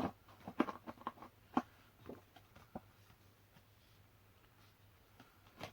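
Faint scattered clicks and taps of small items being handled by hand, bunched in the first three seconds and again near the end.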